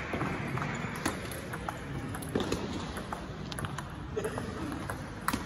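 Table tennis balls ticking on tables and bats around a busy sports hall: scattered, irregular sharp clicks over a low murmur of hall noise and distant voices.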